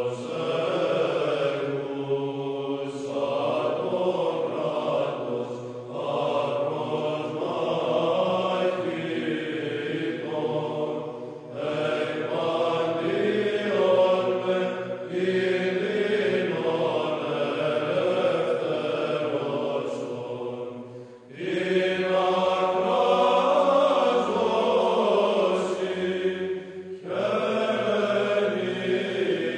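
Soundtrack of slow vocal chanting with long held notes, breaking off and changing abruptly about 11, 21 and 27 seconds in.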